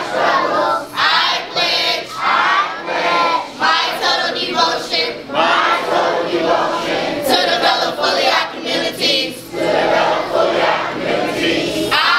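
A crowd of children and adults reciting a pledge aloud in unison, line by line, with short pauses between phrases.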